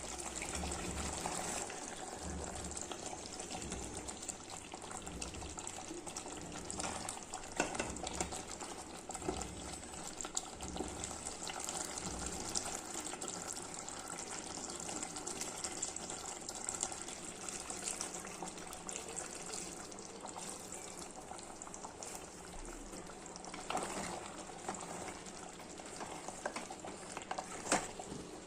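Steady watery hiss of liquid in a cooking pot, with a few sharp clinks: one about seven seconds in and a couple near the end.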